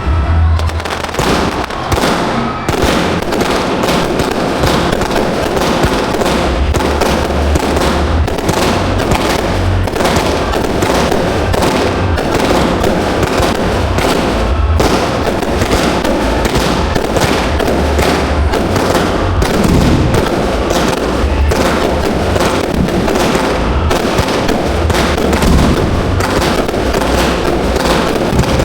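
Fireworks display heard close to the launch site: a dense, continuous barrage of shells and cakes firing and bursting in rapid succession, with no pause.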